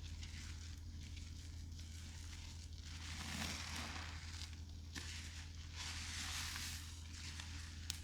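Wet soapy paste of Ajax powder, Gain detergent and bath soap being squished and worked, in slow swells of a second or so, each fizzing and crackling as the mix moves.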